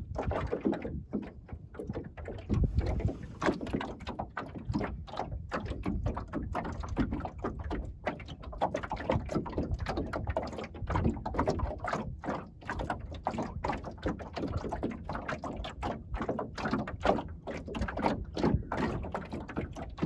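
Water slapping and lapping against the hull of a small wooden sailing skiff under way, a quick irregular run of soft knocks over a low rumble of wind on the microphone.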